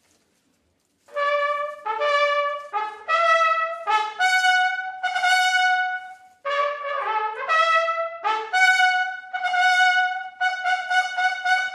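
Trumpets in a brass trio playing a quick phrase of short, separated notes, starting after about a second of silence, with a second brass part sounding together with it in places.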